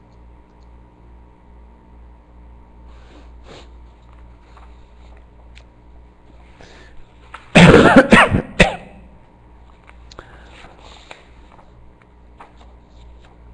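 A person coughing close to the microphone, two or three quick coughs about halfway through, over a faint steady electrical hum.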